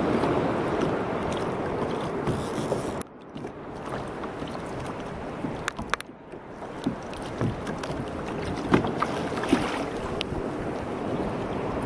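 Wind buffeting the microphone over water splashing and lapping in shallow coastal water, with scattered small splashes and clicks; the rush drops away abruptly twice.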